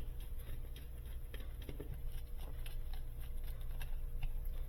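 Faint scattered clicks and taps of small parts being handled while wiring a plug onto a power cord, over a low steady hum.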